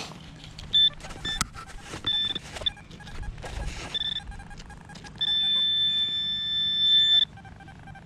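Metal detector giving its high-pitched target tone over a metal target in the hole: several short beeps, then a steady tone about two seconds long, between scrapes and clicks of digging.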